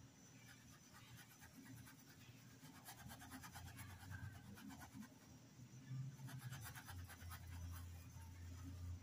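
Faint scratching of a paintbrush's bristles rubbing paint into cotton fabric in quick short strokes, coming in two runs about three and six seconds in, over a low steady hum.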